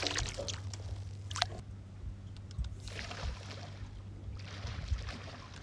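Water splashing as a small snapper thrashes at the surface on the line, in sharp bursts over the first second and a half. After that, water sloshing gently, with a steady low hum underneath.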